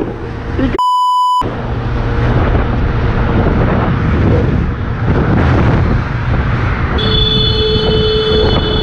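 A censor bleep, one steady beep of about half a second, about a second in, with all other sound cut out under it. Then the running motorcycle and wind rush of riding in traffic, recorded on a helmet camera, with a steady pitched tone joining near the end.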